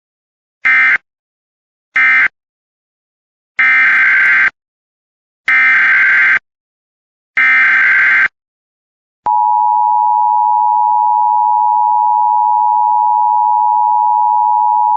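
Emergency Alert System signalling: two short SAME end-of-message data bursts, then three longer SAME header bursts about a second each. About nine seconds in, the steady two-tone EAS attention signal starts and holds.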